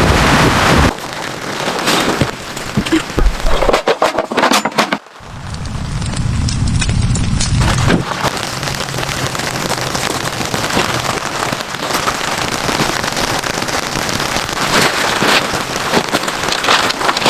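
Heavy rain pattering and crackling on a surface, with gusts of wind buffeting the microphone near the start and again around five seconds in.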